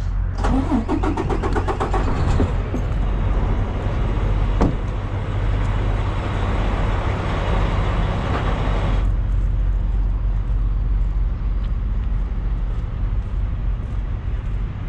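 Semi-truck diesel engine idling with a steady low rumble. A broad hiss lies over it for the first nine seconds or so and cuts off suddenly, with one sharp click in the middle.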